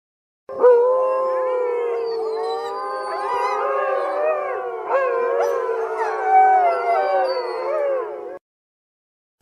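A wolf pack howling in chorus: many wolves at once, long howls held and gliding over one another with shorter rising and falling calls on top. It starts about half a second in and cuts off abruptly about a second before the end.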